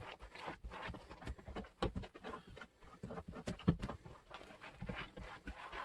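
A spoon or stick stirring a thick flour-and-water paste in a container: irregular scraping, clacks and wet squelches.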